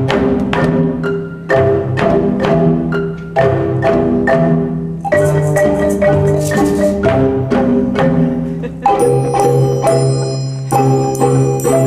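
Children's marimba ensemble playing a rhythmic tune: struck mallet notes ringing over a sustained low bass-marimba line. A high metallic triangle rings out about nine seconds in.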